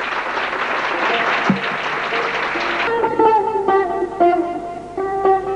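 Audience applauding. About three seconds in the applause stops and a Persian long-necked lute starts plucking single, ringing notes.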